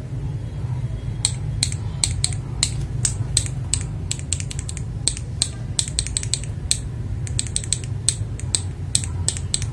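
Typing on a mechanical keyboard fitted with unlubricated, unfilmed switches: irregular sharp key clacks, several a second, starting about a second in, over a steady low hum.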